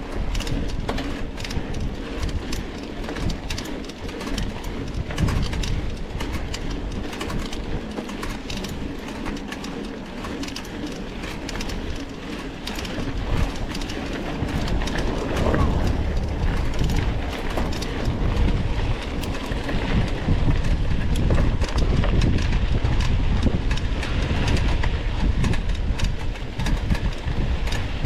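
Mountain bike ridden over a rough dirt trail, its tyres and frame rattling with many small knocks, while wind rumbles on the onboard microphone. It grows louder in the second half.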